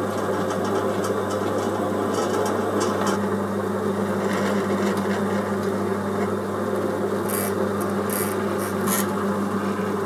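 Drilling machine running steadily with a constant motor hum while a 5 mm twist drill cuts down through metal blocks clamped in a vice, a rough scraping grind. A few brief scratchy bursts near the end come as the swarf is brushed off the work.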